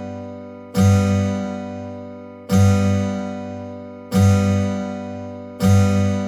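Background music: a full chord struck about every second and a half to two seconds, each one left to ring out and fade before the next.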